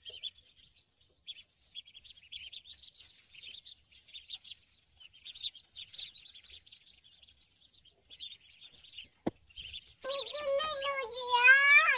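Ducklings peeping: many short, high peeps throughout. A single sharp click about nine seconds in, then near the end a louder, drawn-out call with a clear pitch that rises at the very end.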